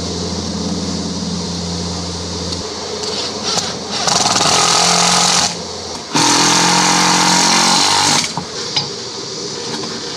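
A power tool runs in two bursts, about a second and a half and then about two seconds long, after a steady machine hum that stops a few seconds in.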